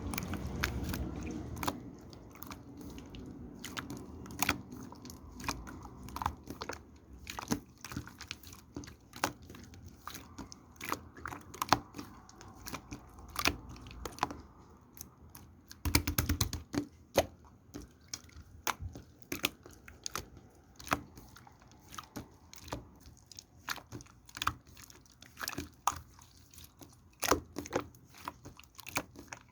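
Close-up crunching and clicking: sharp, irregular clicks a few times a second, with a louder, heavier crunch about sixteen seconds in.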